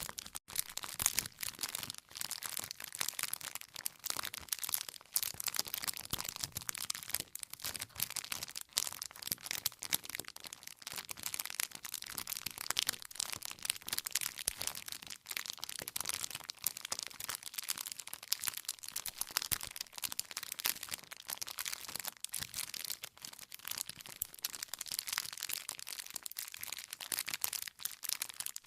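Wood campfire burning, with a dense, continuous crackle of many small snaps and pops as the burning wood bursts.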